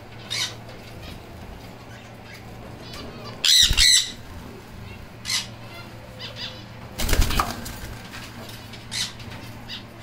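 Caged sun conures giving a handful of short, shrill calls, the loudest a screech about three and a half seconds in, with a broader rustling burst about seven seconds in, over a steady low hum.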